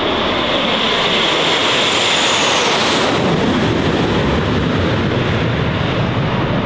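Six Blue Angels F/A-18 Super Hornet jets passing low overhead in formation: a loud jet roar that builds, with a high whine falling in pitch about three seconds in as they go over, then a deeper rumble as they move away.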